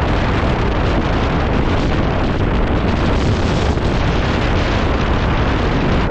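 Wind buffeting the microphone over a loud, steady rushing noise of a rainstorm, with no break or change.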